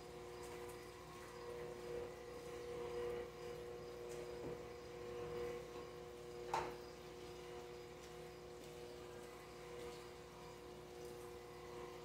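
Steady hum of aquarium equipment with the bubbling of an air stone in the tank. There is one sharp click about six and a half seconds in.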